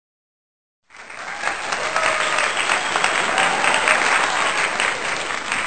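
A crowd applauding: many hands clapping together, starting suddenly about a second in after a moment of silence and keeping up steadily.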